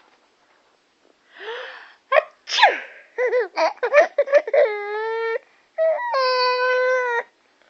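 A woman sneezes, a breathy build-up ending in a loud burst. A young child then giggles in quick bursts and lets out two long, held squeals.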